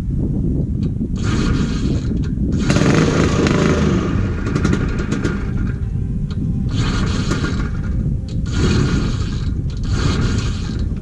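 Vintage Ski-Doo snowmobile's two-stroke engine running with a rough low rumble, revved up in about five surges.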